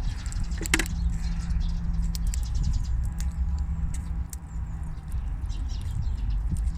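A baby squirrel sneezing: short, sharp sneezes and clicks at irregular intervals, with a louder one just under a second in, over a low steady hum.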